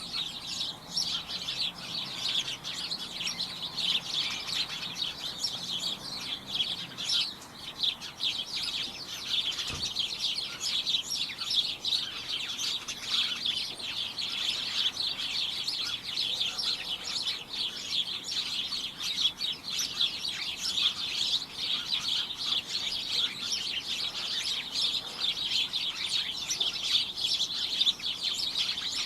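Several small birds chirping at once, a dense, unbroken chatter of short high chirps.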